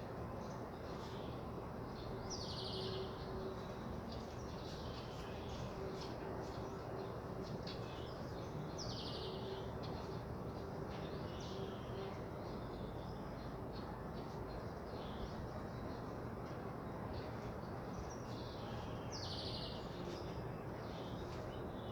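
Steady rain falling, with a short, high chirping call repeating every several seconds and scattered light ticks.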